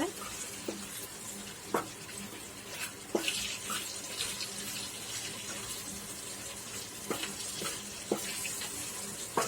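Fried fish and masala spices sizzling in hot oil on low heat, a steady hiss with a few short clicks scattered through it.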